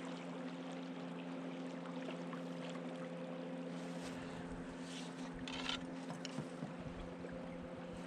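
A steady low mechanical hum over the even rush of running river water, with a brief rustle or splash about five and a half seconds in.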